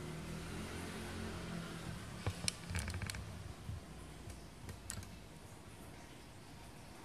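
A low steady hum that fades after about two and a half seconds, with a quick cluster of sharp clicks two to three seconds in and two more near five seconds.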